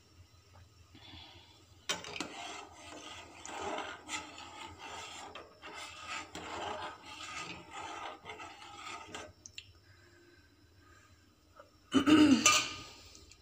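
A metal spoon stirring and scraping around the bottom of an aluminium pot of simmering milk, in repeated rasping strokes for about seven seconds. A short loud clunk follows near the end.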